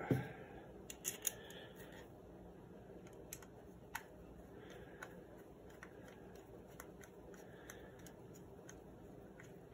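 Screwdriver turning a screw into a pump-up air rifle during reassembly: faint, scattered small metal clicks and scrapes, with a sharper tick about four seconds in.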